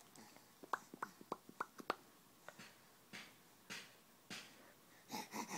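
Soft silly mouth noises: a quick run of about six short clicks or squeaks, then a few soft breathy puffs.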